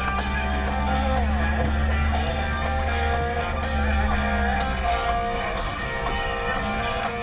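Background music led by guitar, with a steady bass and beat.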